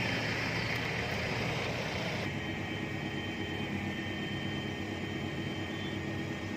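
Off-road 4x4 engine running steadily, with a high hiss that drops away about two seconds in.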